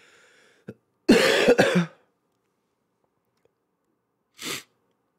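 A man who is sick with COVID coughs hard about a second in, a cough of under a second in two parts. A short sniff follows near the end.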